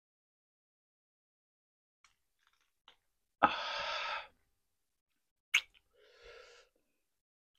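Close-miked mouth and breath sounds of a man eating rotisserie chicken by hand: a few faint clicks, then a loud breathy exhale of about a second that starts sharply, a sharp click, and a softer breathy sound near the end.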